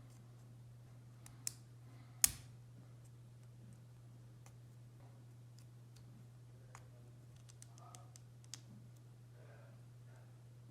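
LEGO Technic pieces clicking as they are handled and pressed together: scattered light clicks, the sharpest about two seconds in, over a steady low hum.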